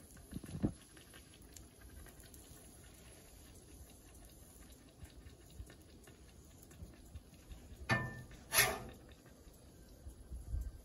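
Faint, steady sizzling of pancakes cooking on a steel flat-top griddle at low heat, with a metal spatula knocking once and then scraping across the griddle surface twice near the end as it slides under a pancake to flip it.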